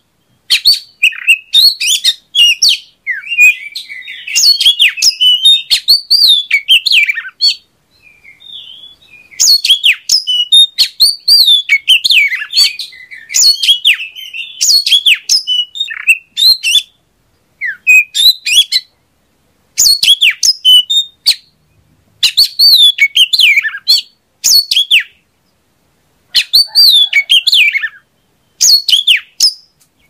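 Oriental magpie-robin (kacer) singing: phrases of quick, varied chirps and notes that glide up and down, each a second or a few seconds long, with short pauses between them.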